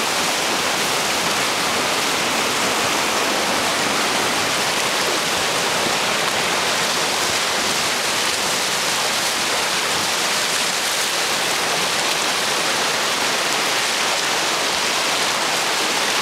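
Whitewater rapids rushing and churning close around a raft, a steady loud hiss of fast water.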